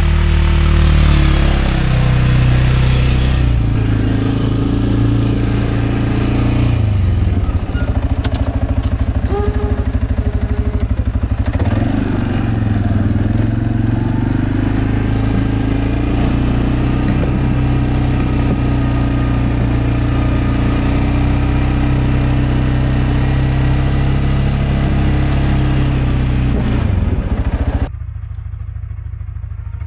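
CFMoto CForce 520L ATV's single-cylinder engine running under load while plowing snow, its pitch rising and falling with the throttle several times. Near the end it becomes quieter and duller.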